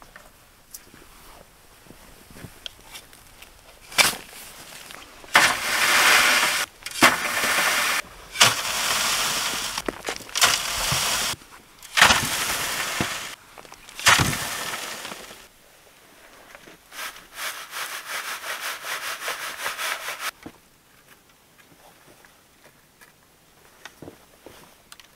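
Sandy soil and stones being sifted through a hanging wire-mesh sieve. Several times, a shovelful lands on the mesh with a sudden rattle, followed by a gritty hissing rush of soil pouring through for a second or two. Near the end comes a quick, even rattling for a few seconds.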